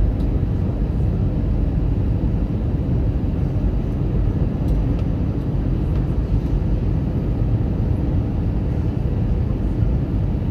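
Steady low rumble of an airplane in flight, with no change in level.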